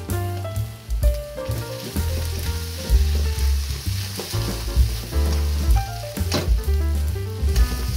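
Rice and kimchi sizzling in a wok as they are stirred with a wooden spatula and the wok is tossed, with a sharp clack a little past six seconds in. Background music with a heavy bass beat plays over it.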